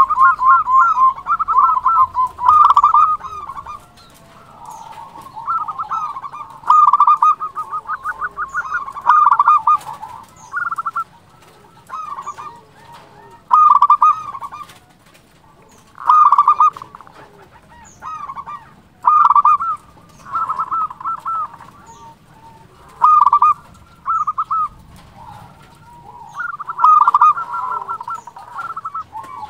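Zebra dove (perkutut) cooing: short phrases of rapid, trilled coos, one every two to three seconds.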